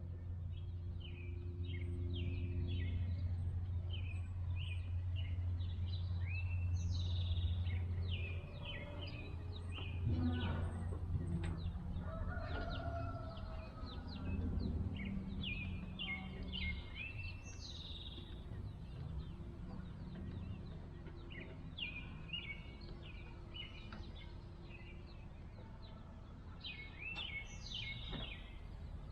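Birds chirping continuously in short, rapid calls. A steady low hum fades out about eight seconds in, and there are a few faint clicks around ten seconds in.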